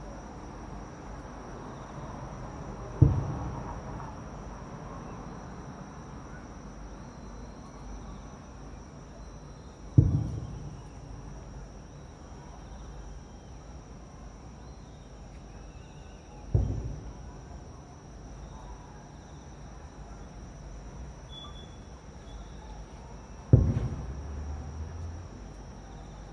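Aerial firework shells bursting: four booms about seven seconds apart, each dying away in a rumble.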